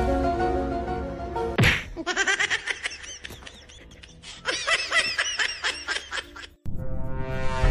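Comic background music with cartoon sound effects: a sharp hit about one and a half seconds in, a long string of quick bouncing chirps, and a rising sweep near the end.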